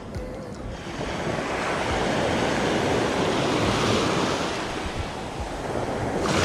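Small waves breaking in the shallows and washing up over a sandy beach: a rushing surf that builds from about a second in, eases off, and surges again as another wave comes in near the end.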